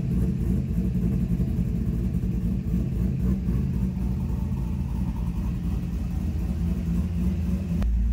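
1999 Chevrolet Corvette C5's 5.7 L LS1 V8, fitted with a new cam, idling steadily through its quad-tip exhaust.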